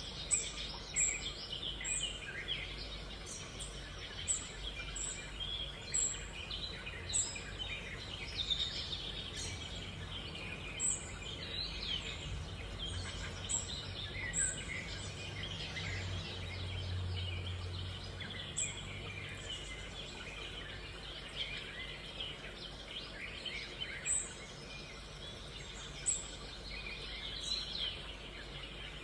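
Birds chirping: many short, overlapping calls, with a faint low hum underneath.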